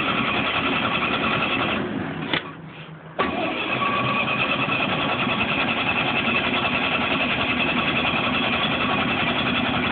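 Starter cranking the gasoline engine of a Lincoln SA-250 welding machine with the choke on, without it catching. Cranking stops about two seconds in, then after a click it resumes a second later and keeps going. The engine has sat for months on old fuel and is slow to start.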